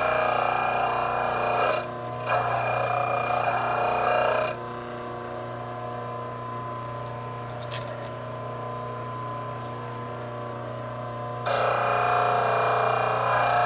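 A drill bit being ground against the motor-driven wheel of a home-built four-facet drill bit sharpener, giving a ringing, whining grind with a brief break about two seconds in. From about four seconds in the bit is off the wheel and only the motor's steady hum is heard, with one click midway. The grind starts again near the end.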